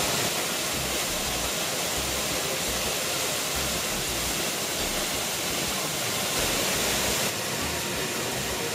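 Waterfall pouring into a rock pool: a steady rushing hiss that drops a little in level about seven seconds in.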